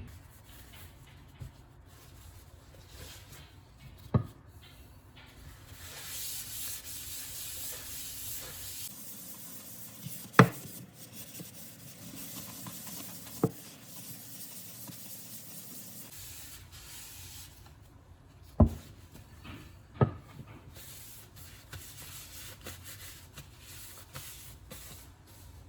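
Steady rubbing and scraping on a hard surface, with a few sharp knocks of things being set down, the loudest about ten seconds in and again near eighteen seconds.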